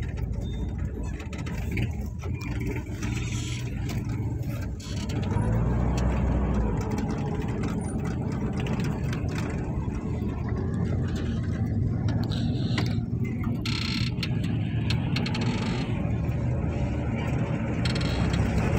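Engine of an old four-wheel-drive jeep running, heard from inside its cabin. It picks up about five seconds in as the jeep moves off slowly through traffic.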